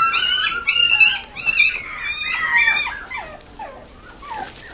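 Long-coat Chihuahua puppy whining and yelping in a quick series of high-pitched calls that fall in pitch. There are about five strong calls in the first three seconds, then fainter whines.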